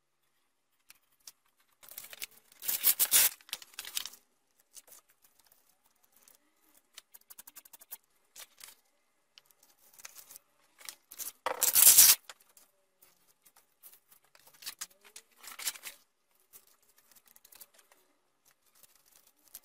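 Hook-and-loop (velcro) fabric strips being worked by hand: three spells of crackling fabric noise, about two, twelve and fifteen seconds in, the middle one loudest, with small scratches and taps between.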